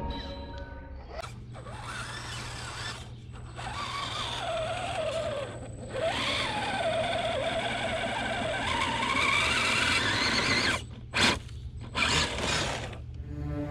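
Redcat Gen8 RC crawler's electric motor and gear drive whining as it crawls up a sand and gravel pile, the pitch rising and falling with the throttle. It stops and starts several times, with short bursts of throttle near the end.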